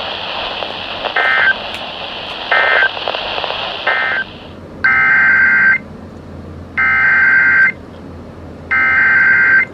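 Emergency Alert System SAME digital data bursts, harsh buzzing screeches. First come three short end-of-message bursts over radio hiss, closing the warning just read. Then come three longer header bursts, starting the next alert.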